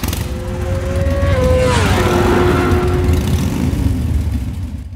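Motor vehicle engine sound effect laid under a logo intro: an engine running past, its pitch sliding down about one and a half to two seconds in as it passes, then fading away near the end.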